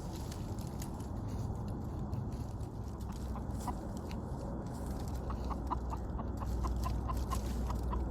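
Chicken clucking in a steady run of short notes, about four a second, starting about three seconds in, over a low steady rumble.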